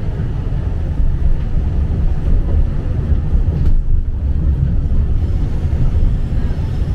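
Tram running along its line, heard from inside the passenger car: a steady low rumble of wheels and running gear, a little louder from about a second in.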